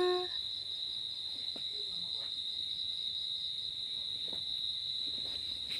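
A steady high-pitched tone continues in the background, with a few faint soft ticks. In the first moment a held hummed note trails off.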